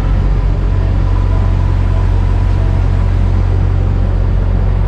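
Cruise boat's engine running at a steady low hum, with a continuous deep drone.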